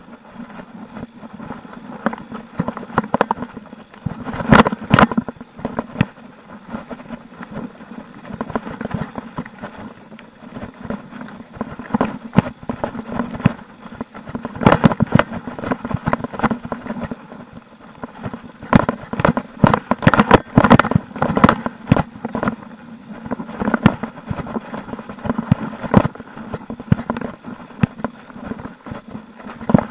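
Mountain bike clattering down a dirt forest trail: a steady rumble of tyres and rattling parts, broken by clusters of sharp knocks over bumps and roots, several times over.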